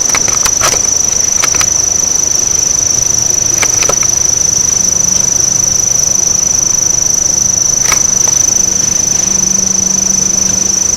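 Boosted, hissy woodland recording with a steady high-pitched tone throughout. A few short snaps in the brush, like twigs or leaf litter giving way, come near the start, as a pair about four seconds in, and once about eight seconds in. The recordist takes them for the footfalls of something walking up on him.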